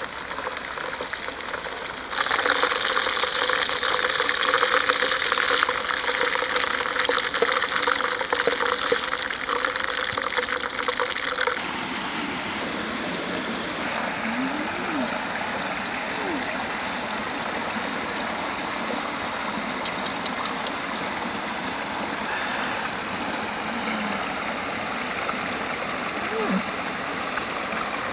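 Whole fish deep-frying in oil in a wok over a wood fire: loud, dense sizzling and crackling that starts about two seconds in and cuts off at about twelve seconds. After that comes the steady rush of a shallow rocky stream.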